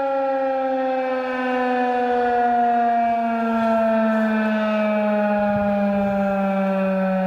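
Federal Signal 2001-130 electromechanical outdoor warning siren sounding loudly, its tone gliding slowly and steadily down in pitch as the rotor winds down.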